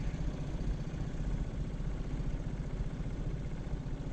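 Four-stroke Yamaha F25 outboard motor idling steadily, a low even running sound.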